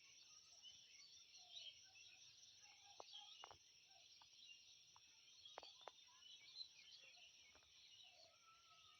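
Faint chorus of many small birds chirping and twittering over a steady high-pitched drone, with a few sharp ticks around the middle.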